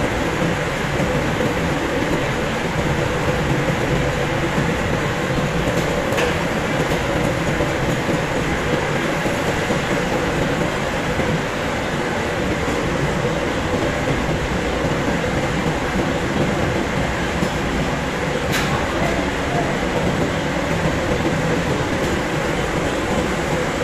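Roll-cutting machine shaving a cast metal flour-mill roll: a steady mechanical running noise with a constant hum. Two brief sharp clicks, one about six seconds in and one about eighteen seconds in.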